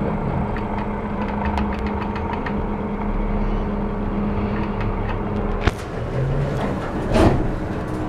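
ThyssenKrupp elevator cab humming steadily. A sharp click comes a little past halfway, and about a second and a half later there is a short whoosh as the car doors slide shut after the door-close button is pressed.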